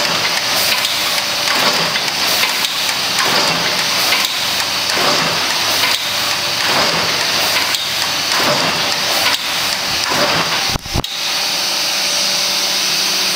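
Theisen & Bonitz Type 315 sheet gathering machine running, a steady mechanical clatter with a regular beat of clacks about twice a second as its stations feed and gather printed sheets. A short drop and a single low thump come near the end.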